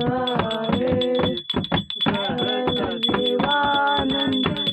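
A song: singing over a fast, steady beat, with a short break about a second and a half in.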